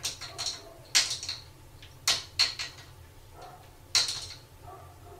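Cupboard doors clacking and rattling against a plastic child lock as a kitten paws and pulls at it: a run of sharp knocks in short clusters, the loudest about one, two and four seconds in.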